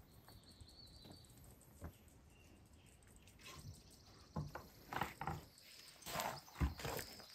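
Quiet outdoor ambience with faint bird chirps, then from about four seconds in a few soft knocks and scrapes as a wooden board is handled and set against a cedar log post.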